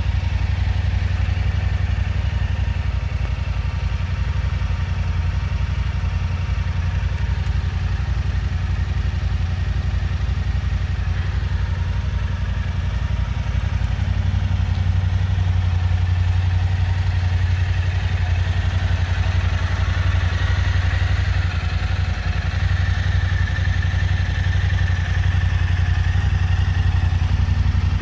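A vehicle engine idling steadily, with a deep, even running sound, a little louder from about halfway through.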